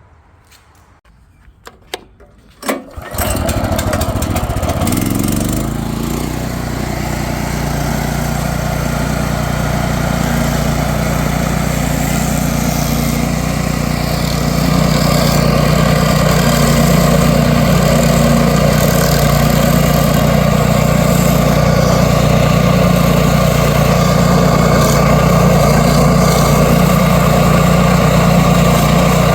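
The stump grinder's 13.5 hp Briggs & Stratton engine starts abruptly about three seconds in, after a few clicks, then runs steadily. It gets a little louder about halfway through.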